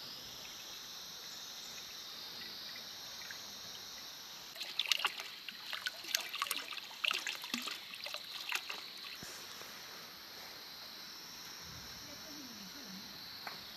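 Water pouring in a thin stream into a large metal wok already half full, splashing and trickling for about five seconds starting about a third of the way in.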